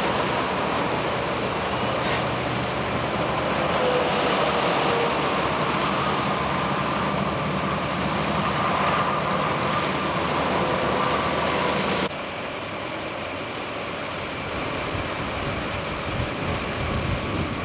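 Diesel engines of heavy earthmoving machines and a dump truck running steadily. About twelve seconds in the sound cuts abruptly to a quieter stretch of engine noise.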